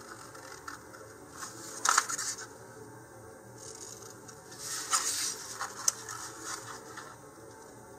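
Scissors cutting through a paper instruction sheet in a few separate, crisp snips, the loudest about two seconds in and around five to six seconds in.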